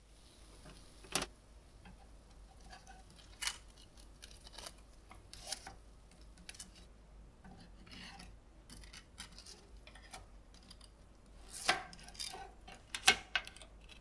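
Metal spatula scraping and sliding under baked palmiers on a parchment-lined baking tray, with scattered sharp clicks and taps as the crisp pastries are lifted. A cluster of the loudest clicks comes near the end.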